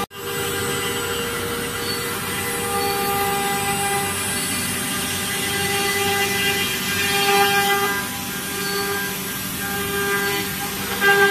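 Spindle of a 4-axis ATC CNC wood router running with a steady high whine while its cutter carves into a wood panel, with the rasp of the cut under it.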